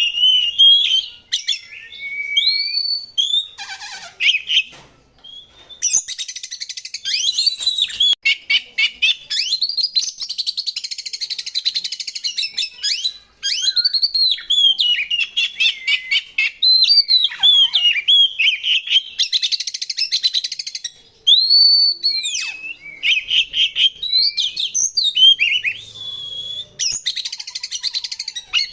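Oriental magpie-robin (kacer) singing without pause: clear whistled notes that sweep up and down, alternating with fast, harsh rattling and chattering phrases.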